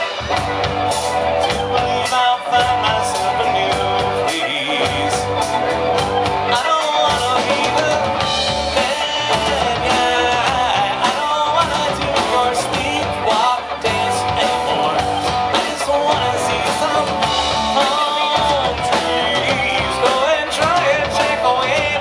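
Live rock band playing: a man sings lead over electric bass, electric guitar and a drum kit.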